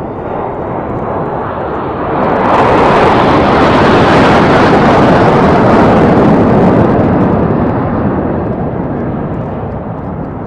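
Jet engines of a low formation of military jets passing over, a steady rushing noise that swells sharply about two seconds in and fades over the last few seconds.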